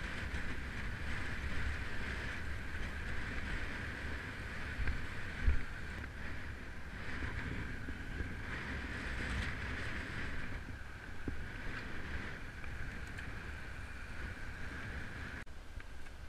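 Wind rushing over a camera microphone carried on a moving road bicycle, with a low gusty rumble of wind buffeting and road noise and a steady hiss higher up.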